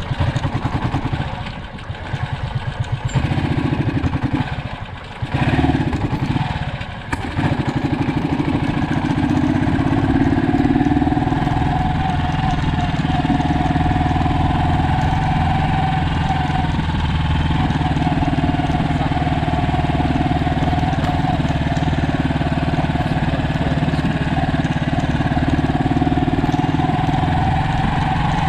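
Engine running, uneven and dipping for the first seven seconds or so, then holding a steady note.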